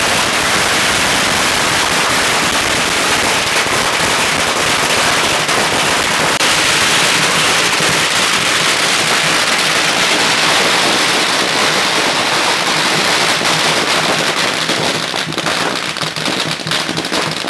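Firecrackers going off in a dense, continuous crackle that breaks into separate bangs and pops near the end.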